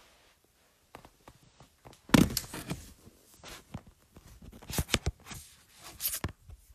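Knocks, bumps and rustling from a phone being handled and studio gear being moved about while recording equipment is set up. The loudest bump comes about two seconds in, with a cluster of sharper knocks near the end.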